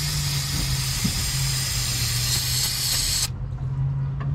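A pressurized spray hissing steadily into the truck's engine bay, cutting off suddenly a little over three seconds in. A steady low hum runs underneath.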